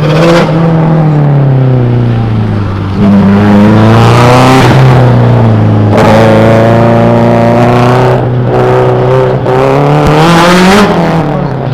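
A car engine running hard around an autocross course. The note drops and rises repeatedly as the car accelerates and lifts, with a sharp climb in pitch near the end.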